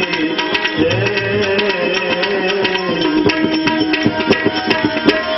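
Instrumental passage of a Gujarati bhajan between sung lines: tabla drumming under a sustained melody. The drumming grows busier about three seconds in.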